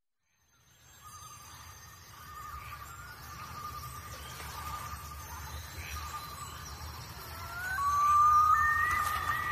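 Background music fading in from silence: a long held flute-like note with a slight waver over a low rumble. Near the end it swells, and a higher flute-like line with sliding notes joins.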